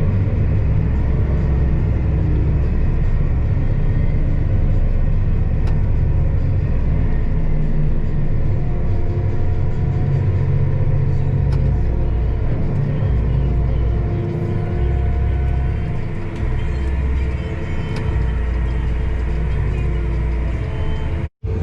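A vehicle engine running steadily under load, a deep unbroken drone with a few faint steady tones above it.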